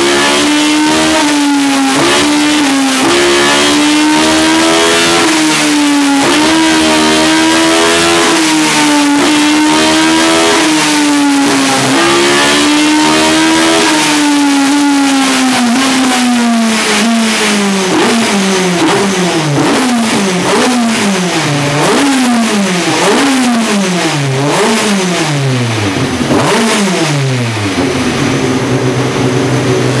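BMW M12 Formula 2 inline four-cylinder racing engine in a BMW 2002 Group 5 car on a chassis dyno, running at high revs with the pitch wavering slightly up and down. About halfway through the revs fall away, and it is then blipped over and over, each rev rising and dropping sharply, before settling lower near the end.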